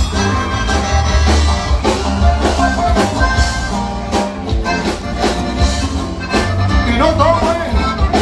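Live regional Mexican band music: a steady bass and drum beat, with a voice singing near the end.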